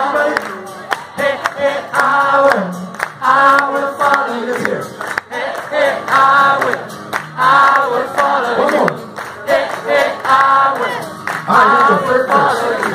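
Live acoustic song: singing over a strummed acoustic guitar, with sung phrases repeating every second or two.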